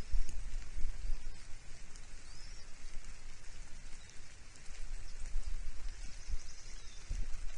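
Steady rain falling, with low gusty thumps of wind on the microphone. A few faint high chirps, like small birds, come through in the background.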